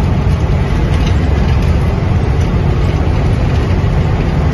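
Tanker truck's engine and tyres heard from inside the cab while driving through a road tunnel: a steady, loud low rumble.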